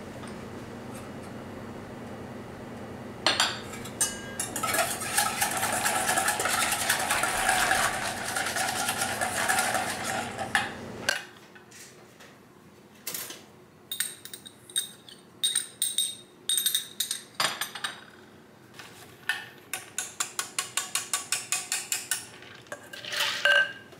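Metal kitchen utensils clattering and scraping against dishes and bowls during food preparation, with ringing clinks. A quick even run of about a dozen taps comes near the end.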